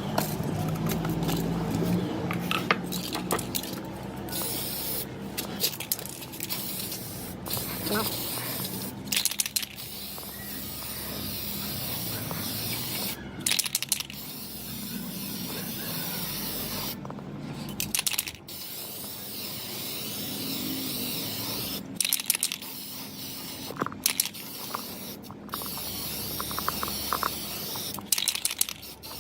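Steady hiss of spraying air, broken by abrupt cuts into several stretches, with scattered clicks and knocks.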